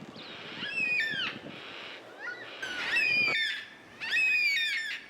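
Yellow-tailed black cockatoos calling, including a young bird's begging call. There are three drawn-out, wavering calls, each a little over half a second, about a second and a half apart.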